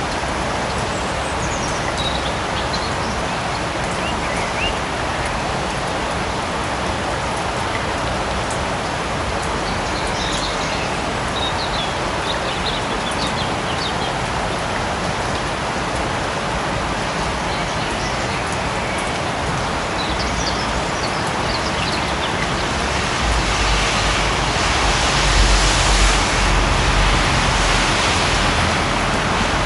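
Light forest rain falling steadily, with a few faint short chirps here and there. For several seconds near the end the rain noise swells louder, with a deep rumble underneath.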